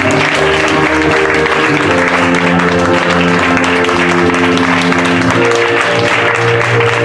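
Piano playing slow held chords as closing music, over audience applause.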